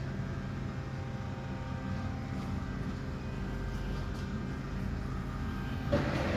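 Front-load washing machine's brushed motor running steadily with the drum turning, a hum made of several steady tones; the motor is working normally on two newly fitted carbon brushes. A louder rushing noise comes in near the end.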